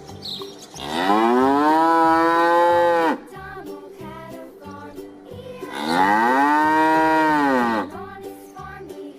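A cow mooing twice, each moo a long call of about two seconds that rises and then falls in pitch. A light tune of short notes plays quietly between the moos.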